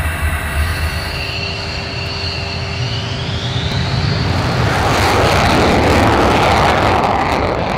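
F-16 Fighting Falcon's Pratt & Whitney F100 turbofan on its takeoff run: a low rumble with a whine rising in pitch, then from about four and a half seconds in the loud afterburner roar swells and takes over, peaking about six seconds in.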